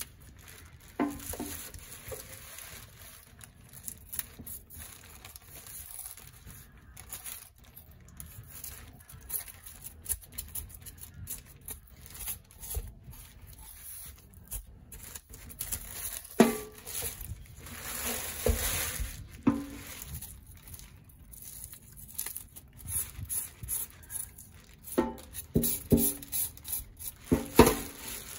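A knife scraping the scales off a whole angel fish: irregular rasping strokes along with the crinkle of a plastic bag, growing busier and louder in a couple of spells in the second half.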